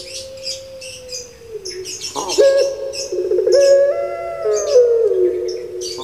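Puter pelung dove (Javanese Barbary dove, Streptopelia risoria) cooing. One long coo slides down and fades about a second and a half in. A new one starts about two seconds in with a quick upward swoop and carries on as a long wavering coo that steps up and down in pitch. Small birds chirp in quick high bursts in the background.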